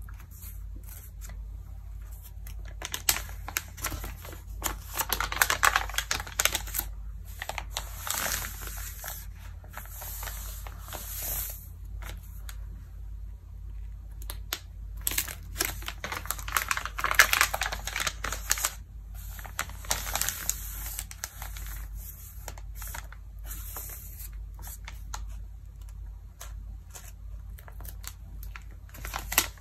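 Glossy Vogue magazine pages handled and turned by hand: crisp crinkling and rustling of the paper in bursts of several seconds, with quieter gaps between, over a faint steady low hum.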